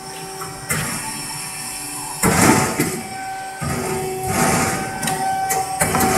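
Hydraulic automatic horizontal cutting machine running: a steady mechanical hum with a few held tones, broken by louder noisy surges about two seconds in, again near four seconds, and near the end.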